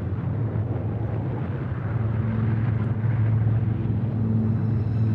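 Low, steady rumble of an erupting volcano's billowing ash cloud. A low held droning note joins it about two seconds in.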